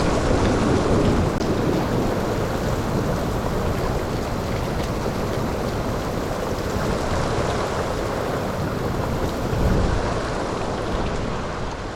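Heavy thunderstorm rain falling steadily, with a low rumble of thunder swelling near the end.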